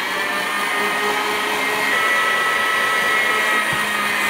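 KitchenAid Classic stand mixer running at a steady high speed, its motor giving a constant whine as the wire whip beats egg whites and sugar into a glossy meringue.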